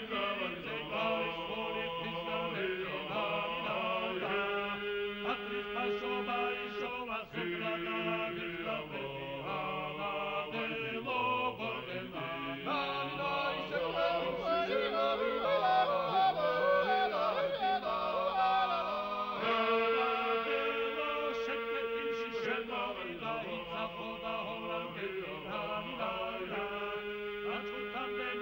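Music of voices singing a chant-like song in several parts over long held notes.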